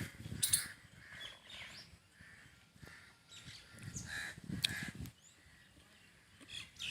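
Birds calling outdoors in short, scattered calls, with a few low thumps in between.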